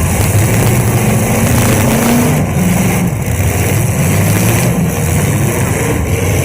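Several demolition derby cars' engines running loudly together, revving up and down, with one climbing in pitch near the end.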